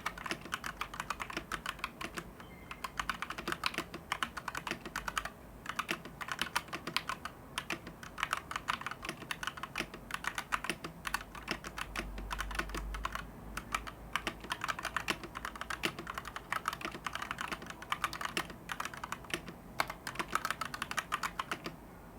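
Typing on an XVX M84 75% mechanical keyboard with PBT keycaps: quick, continuous keystroke clacking with a few short pauses.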